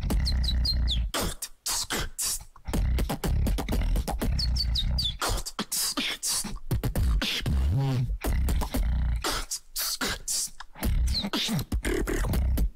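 Solo human beatboxing into a handheld microphone: rapid kick and snare strokes over deep bass tones. Quick high whistle-like chirps come twice, near the start and about five seconds in, and a wavering bass glide comes around eight seconds in.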